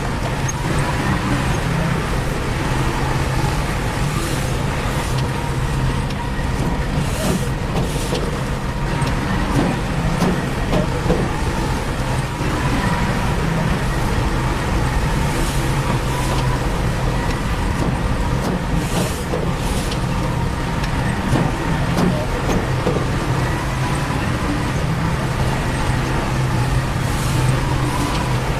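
Heavy diesel engine of a construction machine running steadily with a low rumble and a constant whine, broken by short hisses about four times.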